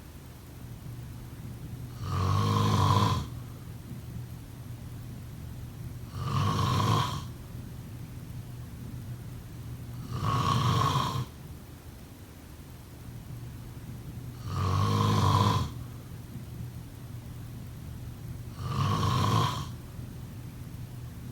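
A person snoring in sleep: five snores at a slow, even rhythm about four seconds apart, each lasting about a second.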